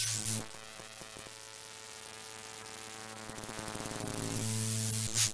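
An electronic buzzing hum with static hiss over it, starting suddenly, swelling louder near the end and cutting off abruptly.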